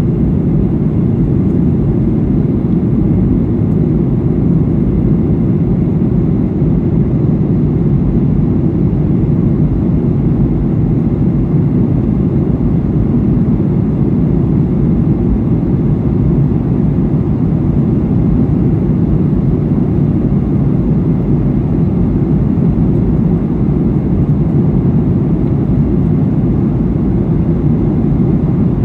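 Steady cabin noise inside a Boeing 737-800 in flight: an even, low rumble of its turbofan engines and the airflow over the fuselage, unchanging throughout.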